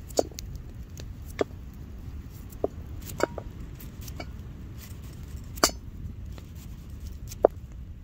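Knife cutting through a raw carrot, about six sharp snaps spaced a second or so apart, as each slice breaks off and drops into an empty stainless steel pot.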